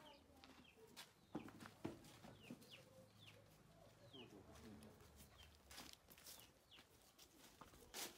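Faint clucks and short squawks from a live chicken held by its legs, with a few footsteps and rustles.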